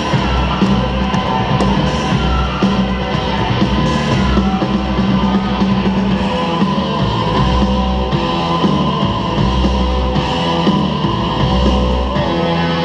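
Loud rock-style music with guitar over a heavy bass line.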